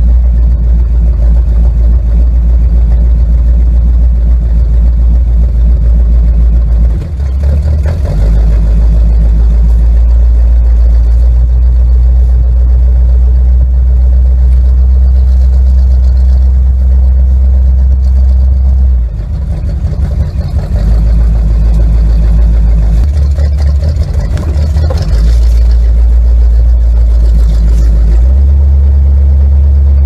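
1946 Willys' four-cylinder engine running while driving, a loud low rumble. Its note dips and changes pitch a few times, once about a quarter of the way through and several times in the second half.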